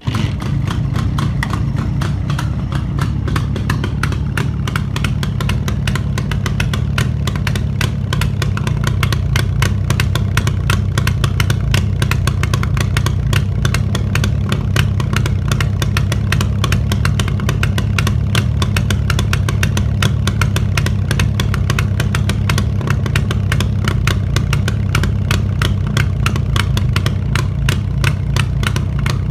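Freshly overhauled Jawa 350 two-stroke twin-cylinder motorcycle engine running steadily at a fast idle, with rapid even firing pulses and no revving.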